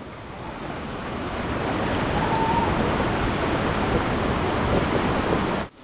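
Rushing river water of white-water rapids, a steady hiss that grows louder over the first couple of seconds.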